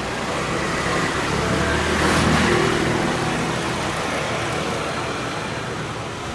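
Road traffic: a vehicle going past, swelling to its loudest about two seconds in and then fading.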